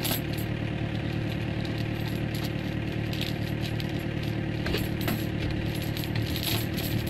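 Hitachi excavator's diesel engine idling steadily, with steel chains clinking and rattling now and then as they are handled around a cast stone slab.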